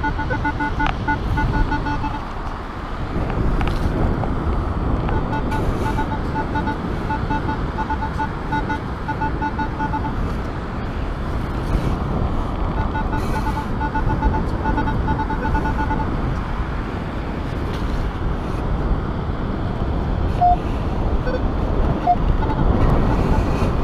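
Minelab Equinox 600 metal detector's built-in speaker sounding a rapidly pulsing, buzzy target tone in three stretches of a few seconds each as the coil passes over a buried target. Steady wind noise on the microphone runs underneath.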